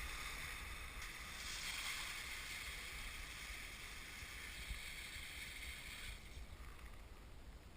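Kayak hull pushing through thin lake ice, the breaking shards making a dense, high, crystalline tinkling and crackling that eases off about six seconds in.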